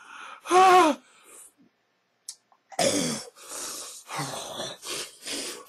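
A man gagging and coughing after swallowing hot sauce: a short strained vocal groan about half a second in, then a run of harsh, rasping coughs and retches from about three seconds in.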